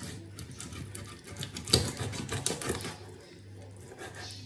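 Chef's knife cutting raw chicken on a cutting board: a run of quick taps and clicks of the blade on the board, the loudest about two seconds in, easing off after about three seconds, over a faint steady hum.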